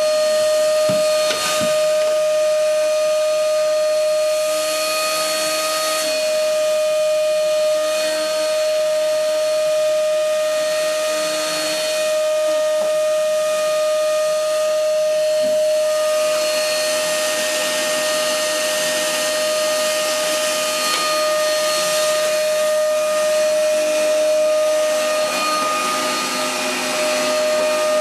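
Canister vacuum cleaner running, a steady whining tone over a rush of air.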